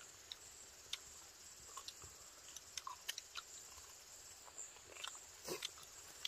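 Faint, irregular crunches and clicks of someone chewing, over a steady high-pitched insect drone.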